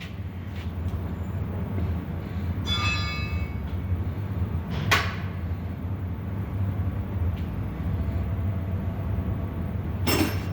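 Steady low mechanical hum, with a brief metallic ring about three seconds in and a single sharp knock about five seconds in.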